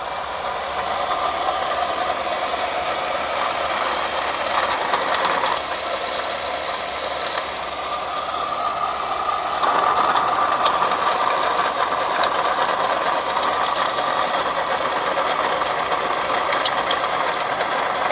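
2004 Toyota Camry engine running with a steady rattling, bubbling noise from the power steering, which the owner likens to a pot of beans cooking. He puts it down to the leaking power steering system and a wobbling pulley. The sound changes character about five and ten seconds in.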